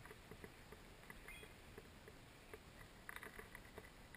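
Near silence: faint outdoor ambience with a few soft, scattered clicks, a small cluster of them about three seconds in.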